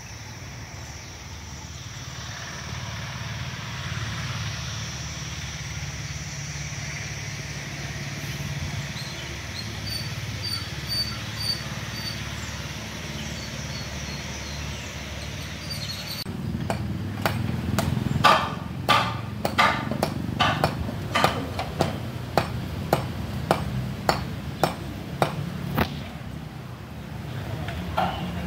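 Quiet outdoor ambience with a few faint bird chirps, then after about sixteen seconds a steady run of sharp hammer strikes on stone, a little under two a second, from masonry work among the stone blocks.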